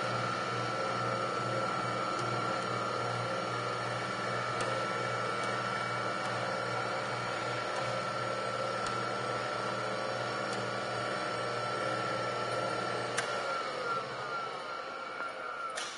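Surface grinder's spindle motor and grinding wheel running with a steady hum. About 13 seconds in it is switched off with a click and winds down, the hum falling in pitch and fading.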